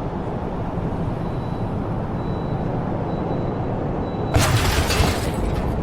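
Steady low rumbling vehicle noise, with a louder, harsher burst of noise about four seconds in lasting around a second.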